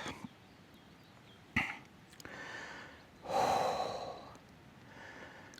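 A man's single long exhale, a sigh, a little past halfway through, with a short knock about a second and a half in.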